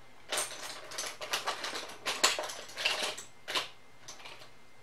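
Makeup products clicking and clattering as they are rummaged through, an irregular run of quick light clicks and rustles that stops about three and a half seconds in.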